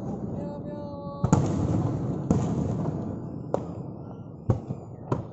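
Aerial fireworks bursting: a series of sharp bangs over a continuous low rumble, about a second apart at first and coming closer together near the end.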